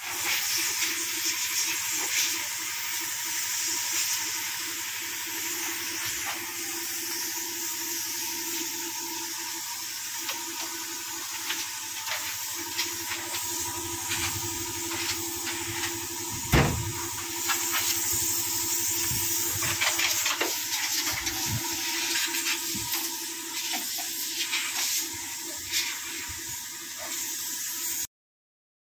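Steady hiss of compressed air from a paint spray gun over a steady hum, with one sharp knock about two-thirds of the way through. The sound cuts off suddenly near the end.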